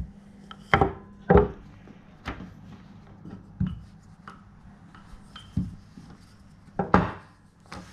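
Wooden rolling pin rolling out puff pastry on a floured tabletop, with about six irregular knocks and thuds as it is pushed back and forth, the loudest near the end.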